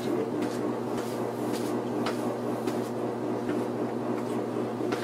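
A steady low hum with a few faint, irregular footsteps over it.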